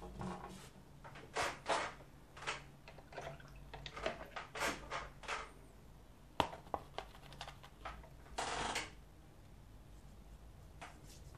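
Paintbrush working on watercolour paper and palette: a string of short, scratchy strokes and taps in the first half, a sharp click, then a longer scrape of about half a second, over a faint steady low hum.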